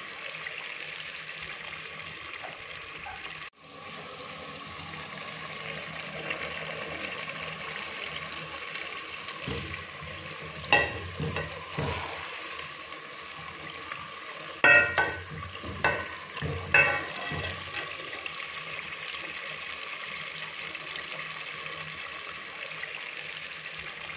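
Potato curry sizzling steadily in an aluminium pressure-cooker pot, with a steel ladle stirring and clinking sharply against the metal pot several times midway.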